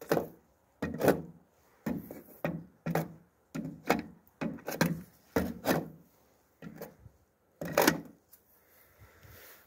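About a dozen irregular scraping strokes across the top of a steel truck fuel tank, made with a hand-held stick, the loudest about eight seconds in.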